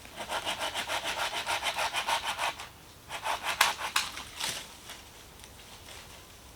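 Hand saw cutting wood with quick, even back-and-forth strokes, then a few slower, uneven strokes before it stops.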